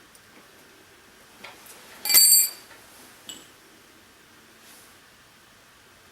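A loud metallic clink about two seconds in, ringing briefly at several high pitches, with a few small clicks and taps around it, as small metal parts or tools are handled and set down.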